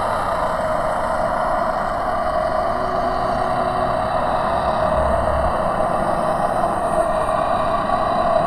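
Eerie horror sound effect standing for an unearthly sound coming from a silent figure: a steady rushing drone with no words, holding at an even level throughout.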